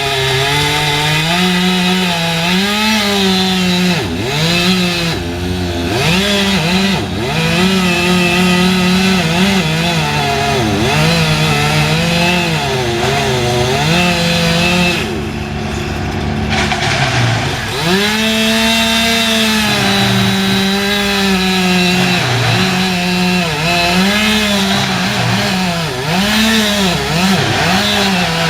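Chainsaw running at high revs while cutting wood, its pitch dipping and recovering again and again as the chain bites. About halfway through it falls to a lower pitch for a few seconds, then revs up and carries on cutting.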